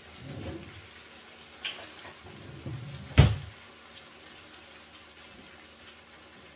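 A spatula stirring chopped dill into a pot of beans: soft knocks and scraping, with one sharp knock of the utensil against the pot about three seconds in, the loudest sound.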